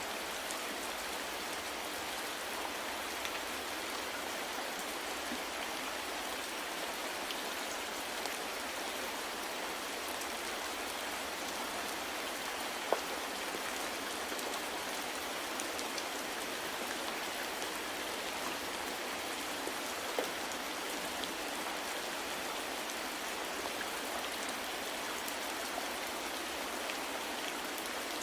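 Steady rain falling, an even hiss of many drops with scattered individual drips; a couple of slightly louder single drops stand out, one about halfway through and one about two-thirds in.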